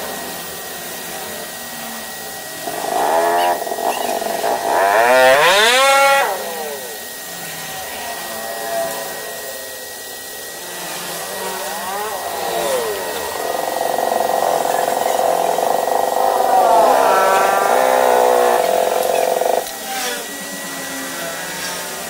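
A motor revving up and down several times, then running steadily for about six seconds before cutting off suddenly near the end. A faint steady high whine sits underneath throughout.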